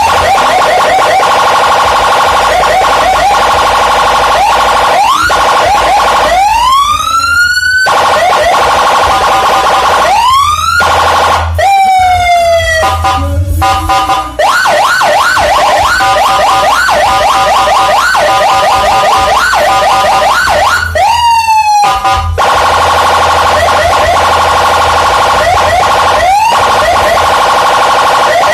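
Senken BM electronic siren sounding loudly through a 15-watt TOA horn speaker, cycling through its tone modes: fast repeated chirping yelps, two long rising wails in the first half, a falling tone, a rapid two-tone warble in the middle, then fast chirping yelps again.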